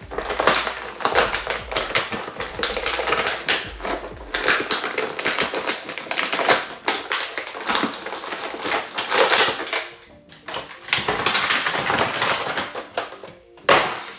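Stiff clear plastic packaging tray crackling and clicking as an action figure is pried and worked out of it by hand, with a short pause about ten seconds in and a sharp snap near the end.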